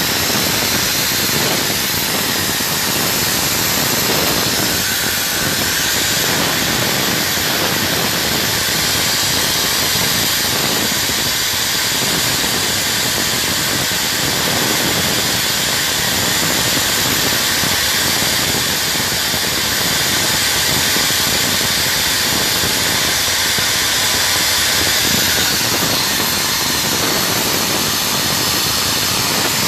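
Hangzhou Fortune oxygen-production machine running with a steady, loud hiss-like rush of noise and no distinct pitch.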